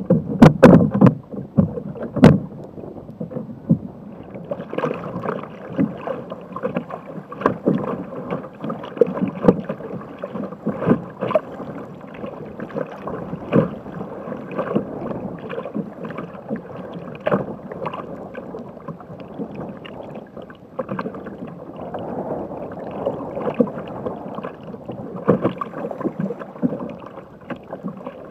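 Rough sea water splashing and slapping against the hull of a Jackson Cuda 14 sit-on-top kayak as it is paddled through choppy waves, with irregular splashes from the paddle blades. There are a few loud knocks in the first couple of seconds.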